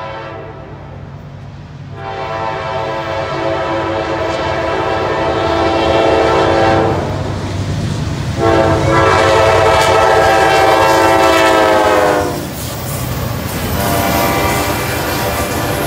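Lead GE Dash 9-44CW locomotive sounding its multi-chime air horn in three long blasts as the freight train approaches and passes. The pitch sags slightly at the end of the second blast. A steady low rumble of diesel locomotives and rolling train runs underneath.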